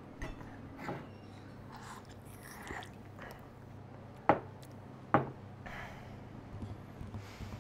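Coffee mugs set down on a tabletop: two sharp knocks about a second apart, around the middle. Quiet room tone with a low steady hum and faint rustling runs under them.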